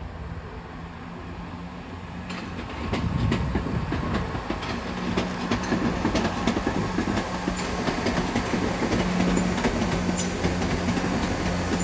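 A train running past on the station tracks, its wheels clicking over rail joints and pointwork, over a steady low drone. It grows louder from about two and a half seconds in.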